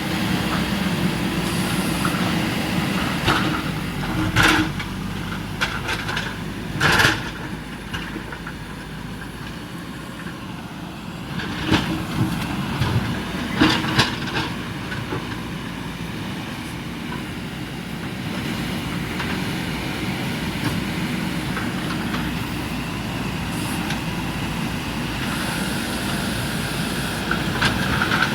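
JCB 3DX backhoe loader's diesel engine running steadily, with half a dozen loud knocks and scrapes scattered through, the loudest about seven seconds in.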